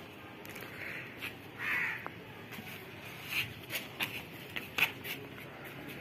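Crows cawing outdoors, several short separate caws spread through a few seconds.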